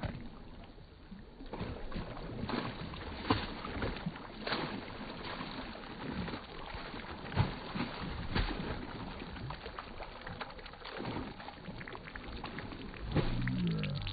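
Water splashing in quick, irregular splashes as a swimming child kicks his legs. Music comes in about a second before the end.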